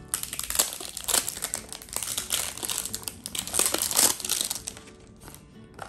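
Clear plastic wrap crinkling and rustling as it is peeled and pulled off a small toy box by hand, in dense crackly bursts that die down to a few quieter rustles near the end.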